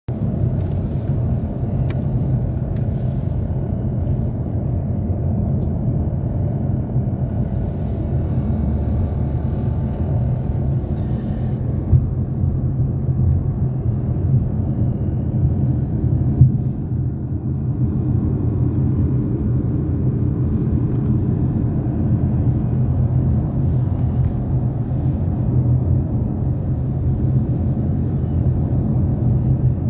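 Steady low rumble of a car at motorway speed heard inside the cabin: tyre and engine noise, with two brief knocks near the middle.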